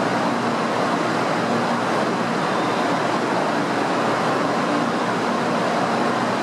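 Steady noise on a Shinkansen platform, with a train standing at it: the stationary train's equipment running, mixed with the hubbub of passengers under the platform roof. A faint low hum comes and goes.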